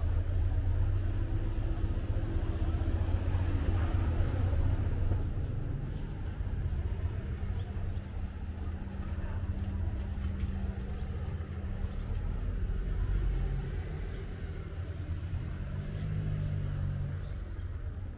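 A car driving slowly past close by, its engine hum rising out of a steady low street rumble for several seconds in the middle.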